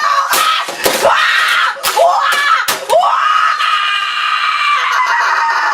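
A boy screaming in rage in short, shrill shrieks broken by a few sharp knocks, then one long, high scream from about three seconds in.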